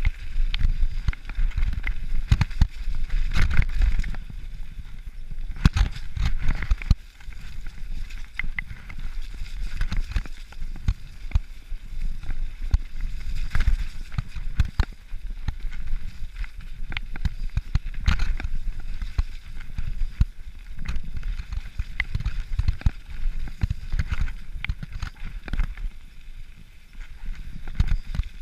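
Mountain bike rolling fast down a wet, muddy dirt trail: rumbling tyre noise with a constant clatter of knocks and rattles from the bike over bumps.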